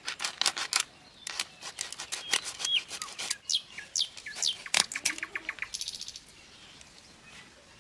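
Fish scales being scraped off against a foot-held curved iron cutting blade (bonti), a rapid run of sharp rasping clicks that thins out after about six seconds. Birds chirp several times in the background.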